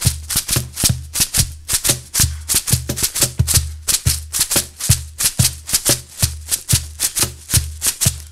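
Homemade rain stick of recycled plastic shaken in a quick, steady rhythm like a shaker, its beads making sharp hissing strokes. Under it a percussion backing track keeps a steady bass-drum beat.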